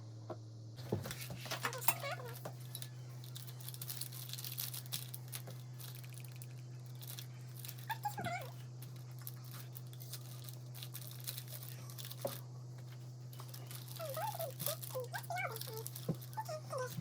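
A dog whimpering in short, wavering high whines, once about eight seconds in and again in a cluster near the end, over rustling, crinkling and light knocks from handling things on a table.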